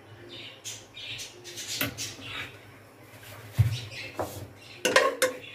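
A wet paste spluttering in short crackly bursts as it is ladled into hot ghee in an aluminium pot. A metal ladle knocks against the pot partway through and again, louder, a few times near the end.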